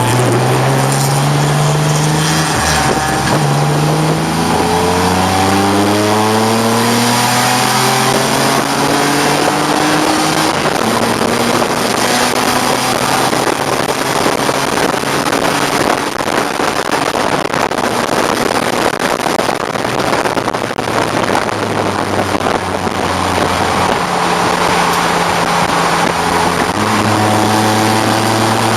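1989 BMW 535i's straight-six engine driven hard on track, its pitch climbing through the gears over the first few seconds and then holding at high revs under heavy wind and road noise. The revs drop about three-quarters of the way through and step back up near the end.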